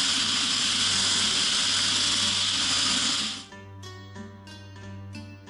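A power tool runs steadily with a loud, even whir and cuts off about three and a half seconds in. Plucked-string background music with a steady beat follows.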